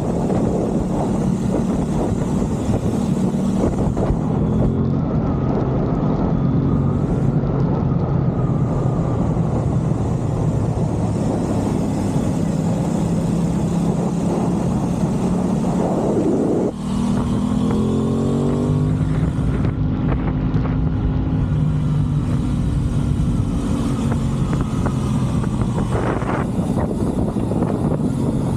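Aprilia Tuono 660 Factory's parallel-twin engine running under way. Its note briefly drops about two-thirds of the way in, then climbs in pitch as it pulls again.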